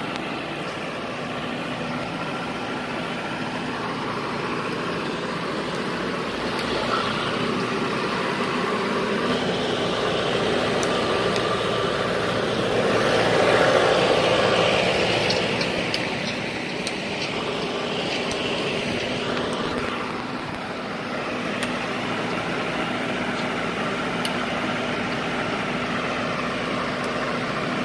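Combine harvester engine running steadily, swelling louder for a few seconds about halfway through.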